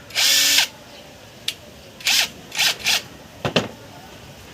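Short bursts of tool noise during alternator repair work: one longer burst near the start, three shorter ones around two to three seconds in, and a sharp knock a little after.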